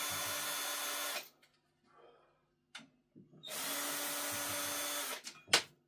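Narex cordless drill-driver backing screws out of a subwoofer's back plate. The motor runs at a steady speed, stops about a second in, then runs again from about three and a half seconds to five seconds. A few sharp clicks follow near the end.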